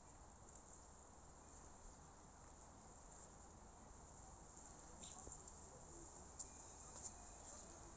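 Near silence: faint outdoor ambience, with a few soft ticks in the second half.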